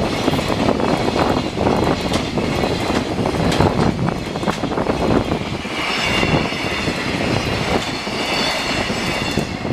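Freight train passing close by, its wheels clattering rhythmically over the rail joints; a high squeal joins in about six seconds in.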